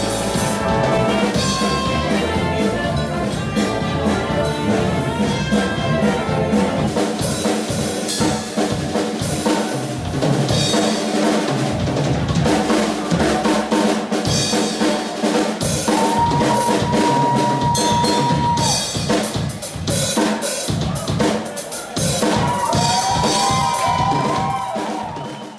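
Live jazz big band playing: saxophones and trumpets over a drum kit. A long held horn note comes about two-thirds of the way through, and the music fades out at the very end.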